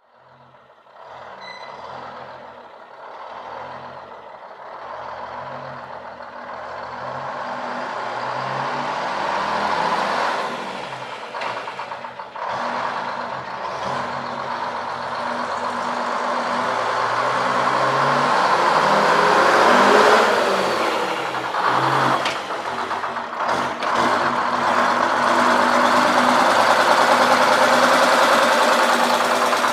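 Turbocharged inline Detroit Diesel 6-71 two-stroke diesel in a 1963 GMC Crackerbox cabover, running and getting steadily louder over the first twenty seconds. Its sound drops off briefly, then it runs loud again.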